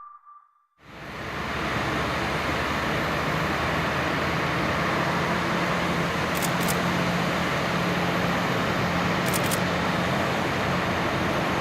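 Steady outdoor airport noise fading in about a second in, with a faint, steady low engine drone from a propeller aircraft.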